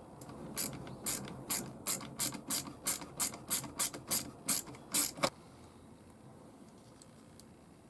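Ratcheting hand tool clicking in a steady rhythm, about fourteen clicks over some five seconds, speeding up slightly from about two to three a second, then stopping.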